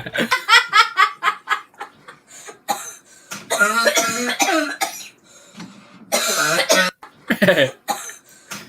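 A person coughing and choking in repeated fits: a quick run of short coughs at the start, then separate coughing bursts with strained, voiced choking sounds between them.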